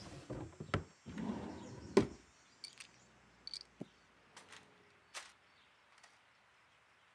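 Someone rummaging through a box of small things: shuffling and a few sharp knocks in the first two seconds, the loudest about two seconds in, then scattered light clicks and taps.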